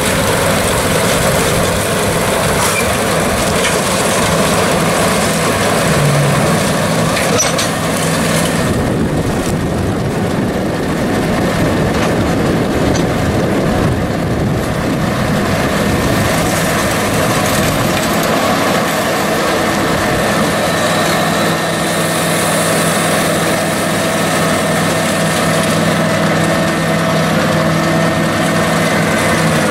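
International 5288 tractor's diesel engine running steadily under load, driving a Vermeer 605M round baler that is baling cornstalks; partway through, the baler's tailgate opens to drop a finished bale.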